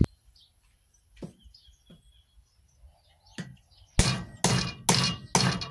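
Hammer driving a nail into a wooden handle: a few light taps, then from about two-thirds of the way in a run of hard blows about two a second.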